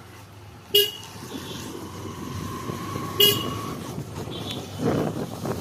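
Two short, sharp vehicle-horn toots, about two and a half seconds apart, over steady street noise.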